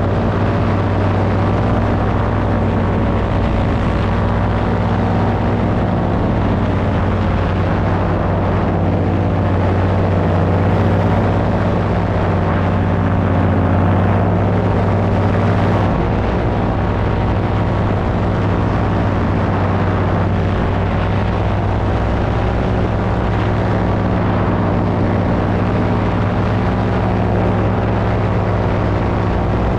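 Paramotor engine and propeller running steadily in cruising flight, a constant droning engine note whose pitch shifts slightly about sixteen seconds in.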